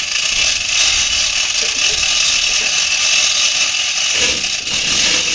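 Manual chain hoist being hauled hand over hand, its chain rattling and ratchet clicking in a steady, fast, high-pitched clatter. The footage is sped up, which raises the pitch and tempo.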